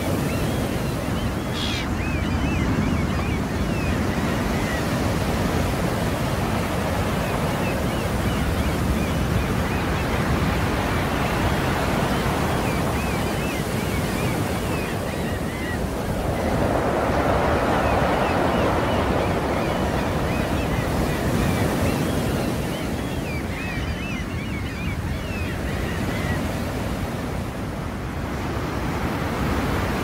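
Sea surf: a steady wash of waves that swells louder and ebbs away, loudest about halfway through.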